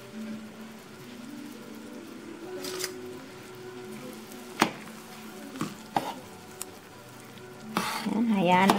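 A pot of broth boiling hard on the stove, bubbling, while a slotted spoon stirs it and clinks against the stainless pot a few times, most sharply about halfway through. Soft background music plays underneath.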